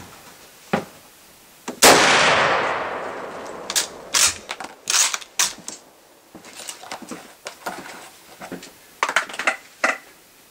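A Mosin-Nagant M91/30 rifle fires a single 7.62x54R shot about two seconds in, a sharp crack with a long echoing tail. A series of short metallic clicks and clacks follows over the next few seconds and again near the end, as the bolt is worked.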